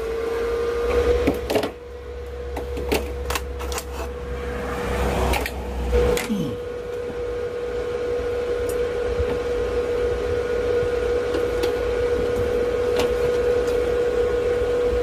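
A power tool's electric motor running at a steady high whine, reaching full speed just as it begins, with a low hum underneath. Several sharp knocks and clanks of metal come in the first six seconds.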